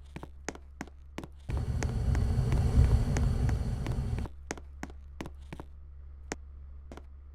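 Lift car standing at a landing: a steady low hum with a regular ticking about three times a second, and a loud rumble for almost three seconds in the middle.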